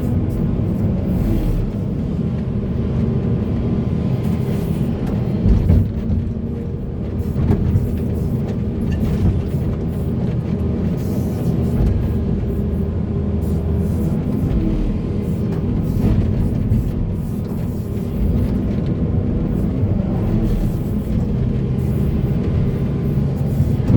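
Heavy diesel earthmoving machinery running steadily under load, with a few brief knocks about five and seven seconds in.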